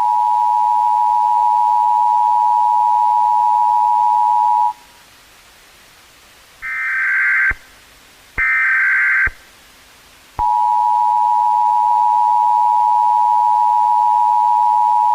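Emergency Alert System two-tone attention signal: a loud, steady pair of close tones near 1 kHz that stops after about five seconds. Two short, higher-pitched bursts of EAS digital data tones follow in the middle, then the two-tone attention signal sounds again.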